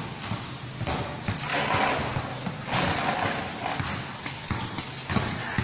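A basketball bouncing on a court amid the general noise of a basketball game, with short knocks and faint background voices.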